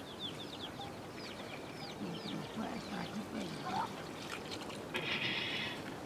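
Domestic chickens calling: a run of short, high, falling peeps, with a louder harsh call about five seconds in.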